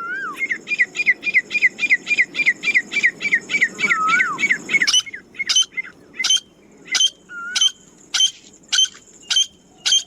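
Grey francolin calling. A fast run of about five short high notes a second lasts about five seconds, with a lower rising-and-falling note twice. Then come slower, sharp notes about twice a second.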